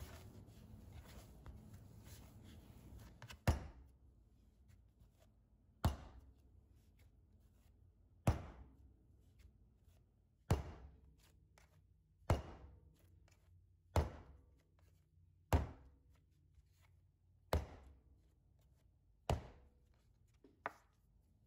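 Bread dough being slapped down hard onto the worktop during hand kneading: about ten dull thuds, one every two seconds or so, the last one lighter.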